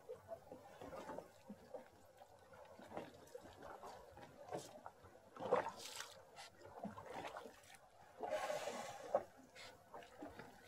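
Water lapping and splashing softly against a small boat's hull. About eight seconds in comes a sperm whale's blow: a hissing whoosh of breath about a second long.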